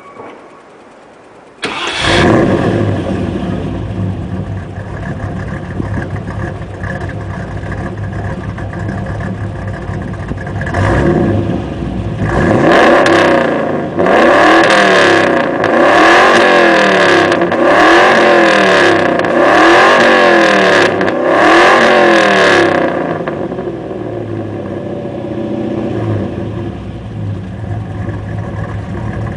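Petrol V8 engine of an off-road mud truck starting about two seconds in and idling, then revved hard over and over, each rise and fall taking about two seconds, before dropping back to idle.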